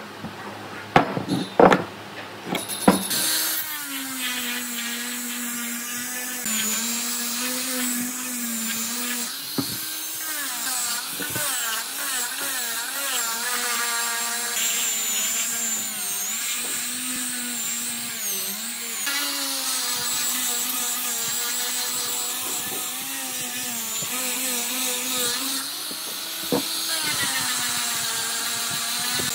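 A few sharp wooden knocks as a heavy wood piece is set down on the bench, then a small angle grinder with a sanding disc runs, sanding wood, its motor whine dipping and recovering in pitch as the disc is pressed into the grain.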